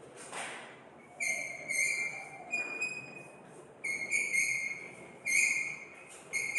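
Chalk squeaking on a blackboard while words are written: about five short, high-pitched squeals, each lasting about half a second to a second.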